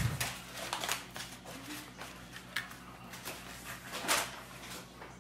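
Light clicks, taps and rustles of someone handling things in a kitchen, with a louder rustle about four seconds in, over a faint steady hum.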